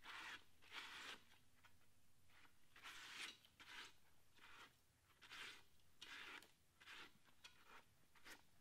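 Bare hand rubbing across the slick, wet inside of a cast iron pot: a run of faint rubbing strokes, about one a second.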